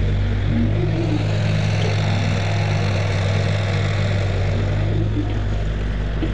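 Diesel engine of a CAT crawler excavator running steadily under working load as it digs and swings, a constant low drone.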